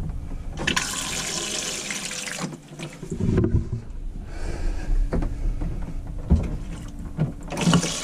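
Thetford C2 cassette toilet flushing: water rushes into the bowl for about two seconds, starting about a second in, and again briefly near the end, with a few knocks in between.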